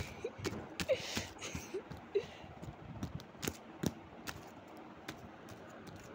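Paper picture being crumpled and crushed by hand, with crinkling and rustling and scattered sharp clicks from handling.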